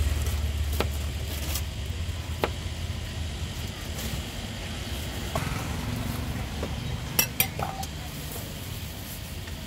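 Street-side ambience at a food stall: a motor vehicle's low engine rumble fading away over the first couple of seconds, then scattered clinks of dishes and utensils, the loudest two in quick succession about seven seconds in.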